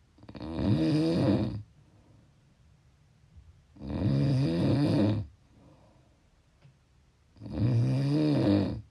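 Snoring: three long snores about three and a half seconds apart, each lasting about a second and a half, with quiet breathing pauses between.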